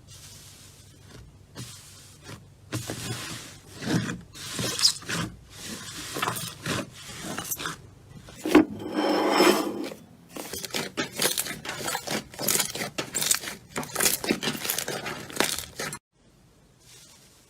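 Slime being pressed and worked by hand: a rapid, irregular run of crackles, clicks and squishy pops, with a longer squelch about halfway through. It cuts off suddenly near the end.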